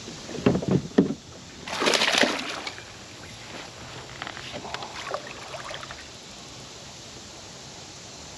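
Knocks and thumps on a plastic pedal fishing kayak as rod and landing net are handled while fighting a hooked bass. A loud splashy burst of water comes about two seconds in, followed by scattered light clicks from the spinning reel and gear.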